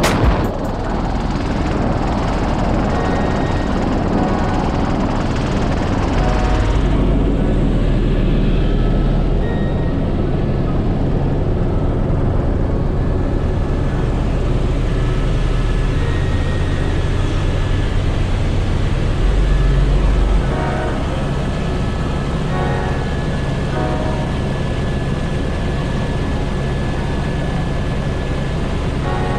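Helicopter turbine and rotor drone heard from inside the cockpit, steady and loud, its low rumble swelling louder for a few seconds twice.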